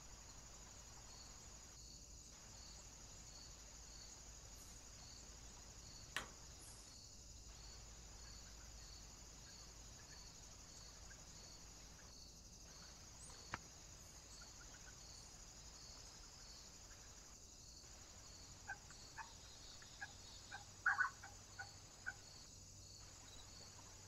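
Faint steady hiss with a regular high-pitched pulsing, two isolated sharp clicks, and near the end a quick cluster of short calls and taps from small birds at the feeder, the loudest sounds.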